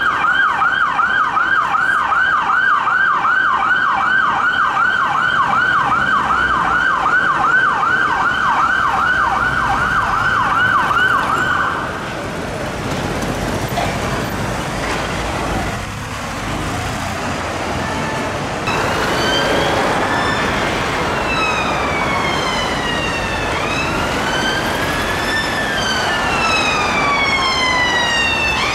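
Emergency vehicle siren on a fast yelp, about three sweeps a second, for the first twelve seconds. It cuts off, leaving road traffic noise. A slow rising and falling wail starts later, each rise or fall lasting a few seconds.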